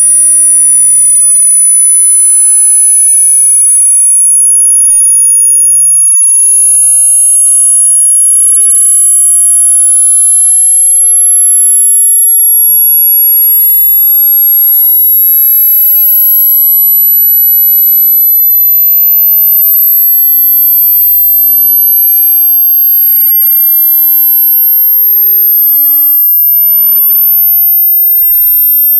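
Loud pure sine test tone, high-pitched and rising slowly and steadily in pitch: a frequency-sweep burn-in signal for breaking in new speakers and headphones.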